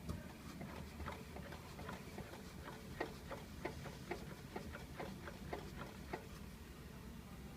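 Peugeot 3008 drivetrain knocking during an inspection: a run of short, sharp knocks, a few a second, that stops about six seconds in. The owner takes it for a knock that probably comes from the gearbox.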